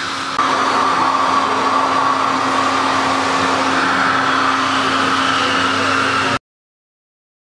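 Vacuum cleaner running steadily: a loud rush of air through the hose over a constant motor hum. It steps up in loudness about half a second in and cuts off abruptly near the end.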